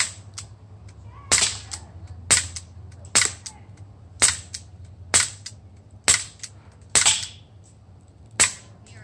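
Walther CP99 Compact CO2 blowback BB pistol firing about nine single shots at roughly one a second, each a sharp crack.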